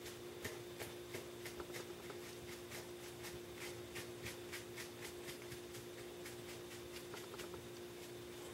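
A rag brushed in quick, light sideways strokes over an EVA foam armour piece, making faint swishes at about three a second that thin out after about five seconds. A steady low hum sits underneath.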